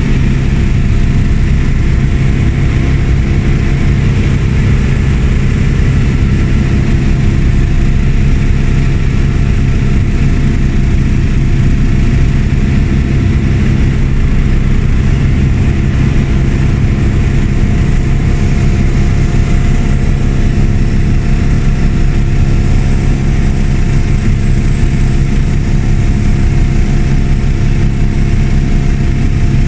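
Helicopter engine and rotor running steadily in flight, heard loud from inside the cabin, with a deep hum and a thin steady high whine over it.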